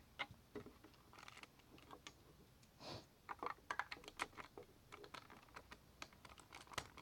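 Faint, irregular clicks and taps of plastic Lego bricks being handled and a piece slid back into place.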